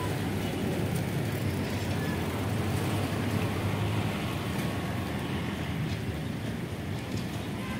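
Steady drone of a moving vehicle: a low engine hum with road noise, unchanging throughout.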